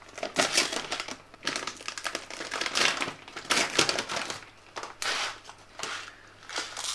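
Plastic pouch of basmati rice crinkling as it is picked up and handled, in irregular rustles.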